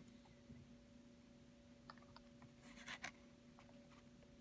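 Faint handling of a stack of trading cards: soft ticks and a brief scratchy rustle about three seconds in as a card is slid off and moved to the back, over a faint steady low hum.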